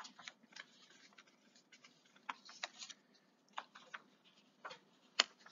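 A few faint, irregular clicks and ticks in a quiet room, the loudest about five seconds in.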